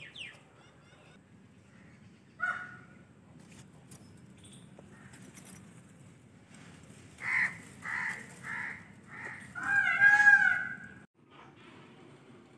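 An animal calling: one short call, then a run of about five short calls roughly half a second apart, ending in a longer, louder call near the end.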